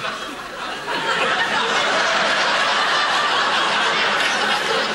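Studio audience laughing, a long steady wave of laughter that dips briefly at the start and swells again about a second in.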